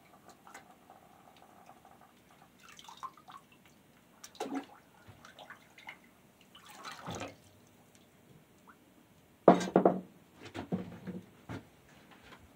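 Hand sloshing and scrubbing in a bucket of water, with irregular splashes and drips. The loudest splash comes about nine and a half seconds in.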